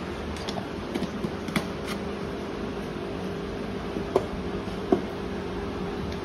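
Steady hum of aquarium equipment such as a filter or air pump, with a low tone and a stronger higher one, over a water-like hiss. A few short clicks come over it, the loudest two about four and five seconds in.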